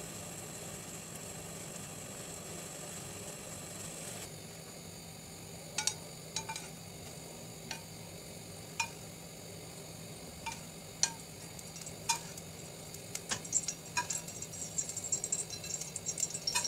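Lentils simmering in a stainless steel pot with a steady hiss. After about four seconds it gives way to a metal spoon clinking against a stainless steel pot with oil in it: single clinks a second or so apart, then a quick run of clinks near the end as it stirs.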